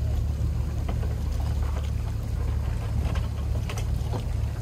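Boat engine running with a steady low drone, with a few faint knocks over it.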